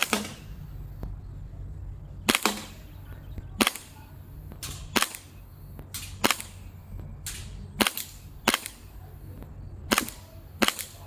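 G&G STP45 Pro gas-blowback airsoft pistol firing about nine single shots at uneven intervals of one to two seconds, each a sharp crack with the slide's snap, with a couple of fainter clicks in between.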